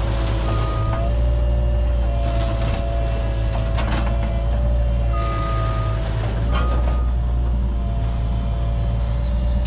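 Cat 303.5 mini excavator working: its engine runs steadily with a steady hydraulic whine, a couple of knocks, and a few short high beeps.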